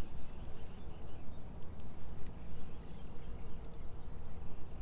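Wind rumbling on the microphone, an uneven low noise, with a few faint high ticks scattered through it.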